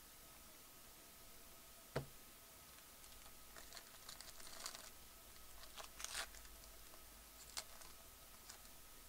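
Foil wrapper of a trading-card pack crinkling and tearing as it is opened by hand, faintly, in short crackling spells. A single sharp click about two seconds in is the loudest sound.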